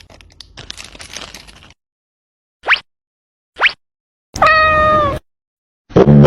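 A cat meows once, about four and a half seconds in, with a call that drops and then holds its pitch. It is preceded by two short, quickly rising squeaks about a second apart.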